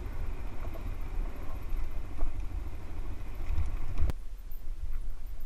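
Dual-sport motorcycle riding over loose gravel and rock, its engine and tyres heard under a heavy rumble of wind on the camera microphone. A single sharp knock about four seconds in.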